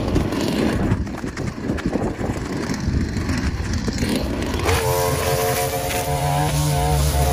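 Gas string trimmer engine running at cutting speed as the line cuts grass and weeds along a fence. About five seconds in, background music with guitar and bass comes in over it.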